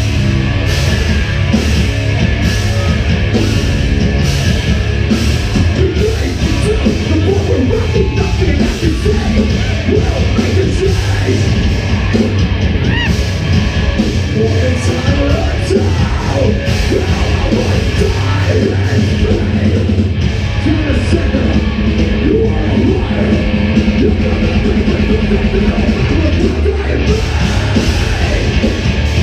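Live rock band playing loudly, with drums, guitars and a singer's vocals.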